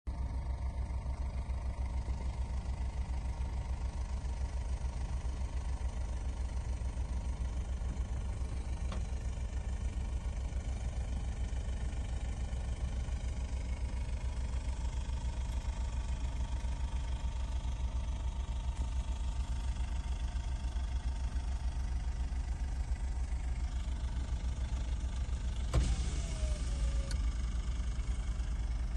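Car engine idling, heard from inside the vehicle as a steady low rumble. Near the end there is one sudden knock, followed by a short falling tone.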